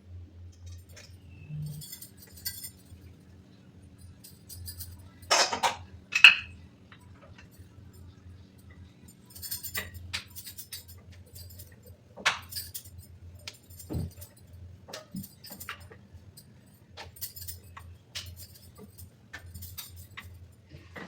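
Metal kitchen utensils and dishes clinking and knocking now and then, with two louder knocks about five and six seconds in, over a steady low hum.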